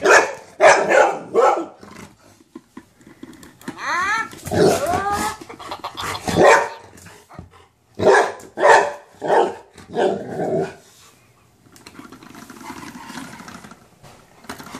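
Golden retriever barking in short bursts: three quick barks at the start, more through the middle, then a quieter last few seconds. About four seconds in there is a stretch of sliding, rising and falling sound.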